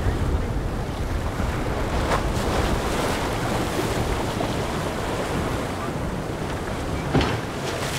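Wind buffeting the microphone over breaking waves and spray as a Robalo R300 with twin Yamaha 300 outboards runs through rough chop, with two sharp splashes about two seconds in and about seven seconds in.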